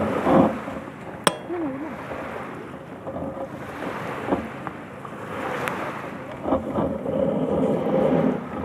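Waves washing on the shore with wind buffeting the microphone, and two sharp clicks, one about a second in and another past the middle.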